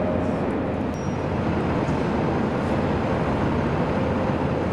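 Steady low rumble of city traffic, an even noise without distinct events.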